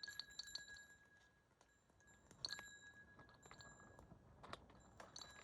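Faint sharp clicks and clinks of metal hoof-trimming tools, each followed by a brief metallic ring, in clusters near the start, about two and a half seconds in, and near the end.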